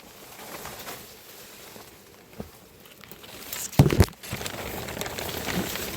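Low rustling and movement noise with two loud thumps close together about two-thirds of the way in.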